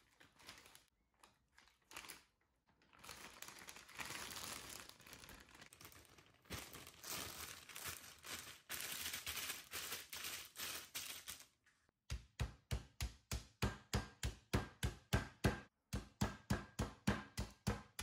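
Plastic zip-lock food bag crinkling and rustling as raw lamb pieces are put in and pressed flat by hand. About twelve seconds in comes a run of sharp thuds, about three a second with a brief pause: the bagged meat is being pounded on a wooden cutting board.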